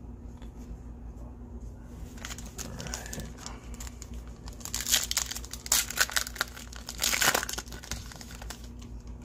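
Trading card pack wrapper torn open and crinkled by hand as it is peeled off the cards. The crackling starts about two seconds in and is loudest in the second half.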